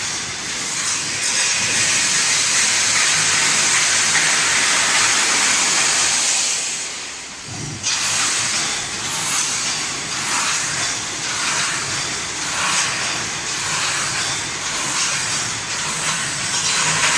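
Wire mesh welding machine running with a steady, loud hiss. It dips briefly about halfway through, then comes back with a faint repeating stroke roughly once a second, in keeping with its welding cycle.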